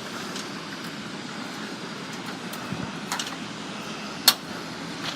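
Steady outdoor urban background noise, with one sharp click a little after four seconds in.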